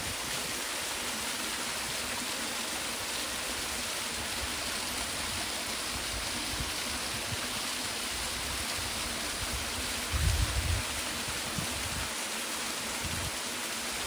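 Steady rush of flowing water, with a brief low thump about ten seconds in.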